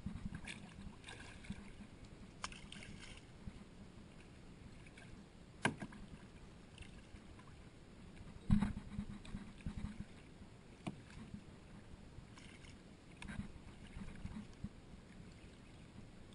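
Kayak paddle strokes dipping and splashing in the water in an irregular rhythm, with a few sharp knocks, the loudest about halfway through.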